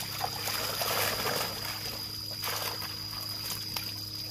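Water splashing and trickling in irregular bursts as netted tilapia thrash in shallow pond water.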